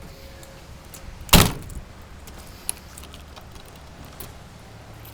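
One loud slam about a second and a half in, as a closure at the back of a pickup truck is shut, followed by a few faint clicks and handling noises.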